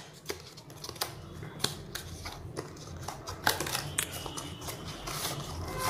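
Cardboard product box being handled and opened: the inner paperboard tray slides out of its sleeve with a run of small clicks, taps and rustles.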